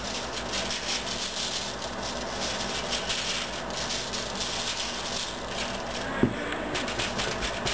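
Dry seasoning rub shaken from a shaker bottle over a whole raw chicken: a fast, rattling patter of grains that stops about five and a half seconds in, followed by a single knock.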